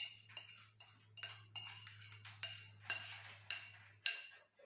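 A spoon clinking and scraping against a dish while spreading a melted chocolate-and-butter topping: about ten sharp ringing clinks at an uneven pace of roughly two a second. A faint low hum sits underneath and stops about four seconds in.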